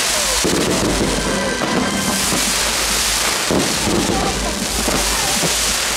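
Fireworks display going off: a dense, unbroken crackle and hiss of a falling-spark curtain and bursting aerial shells, over a steady low rumble.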